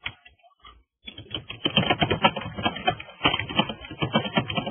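Typing on a computer keyboard: a few light keystrokes, then about a second in a fast, steady run of key clicks.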